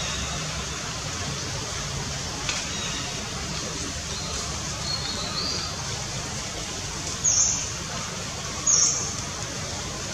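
Steady outdoor background hiss, with two short, loud, high-pitched chirps about a second and a half apart after some seven seconds, and a faint high chirp a little earlier.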